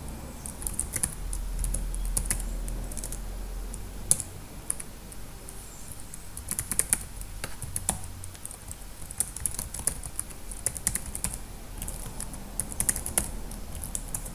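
Computer keyboard typing in quick runs of keystrokes with short pauses between them.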